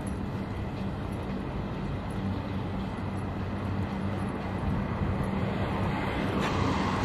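Steady road traffic noise with a low, even hum underneath, growing slightly louder in the second half.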